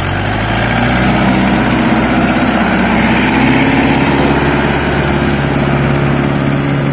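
Mahindra Yuvo 585 DI 4WD tractor's four-cylinder diesel engine working under load, hauling a loaded trolley through deep paddy-field mud with its wheels churning. The engine's revs climb over the first second, then hold steady and loud.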